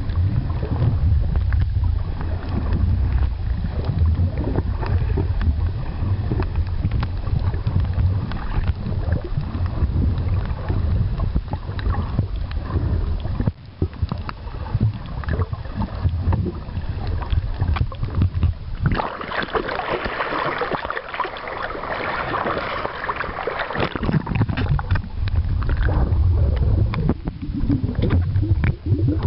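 Underwater water noise on a submerged camera: a steady low rumble of water moving around the housing, with a louder hissing stretch for several seconds about two-thirds of the way through.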